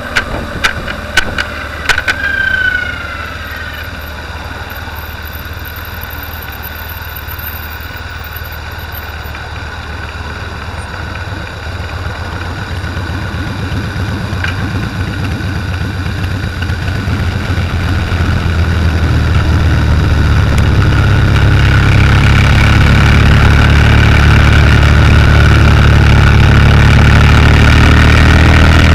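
Motorcycle engine running during a ride, picked up by an on-board camera along with wind noise. A few sharp clicks come in the first couple of seconds. From about twelve seconds in, the engine and wind grow steadily louder, then stay loud.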